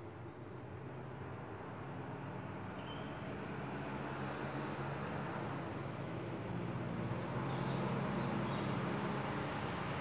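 Steady outdoor rushing noise with a low hum under it, growing gradually louder, and a few short high bird chirps about two seconds in and again around the middle.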